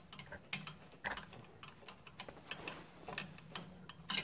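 Light, irregular clicks and ticks of a screwdriver and screws fastening a cover back onto a snowblower engine, with one sharper click near the end.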